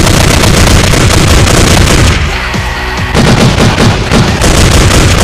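Rapid bursts of gunfire sound effects over loud background music. A short lull about two seconds in, then the firing resumes.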